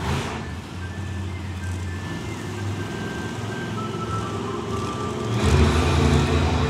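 Monster truck engine running with music playing over it; about five seconds in, the engine revs up and gets louder.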